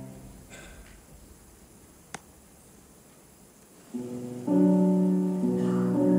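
Recorded dance score: the held chords stop, leaving a pause broken by a single sharp click about two seconds in; then sustained keyboard chords come in about four seconds in, stepping up in loudness half a second later.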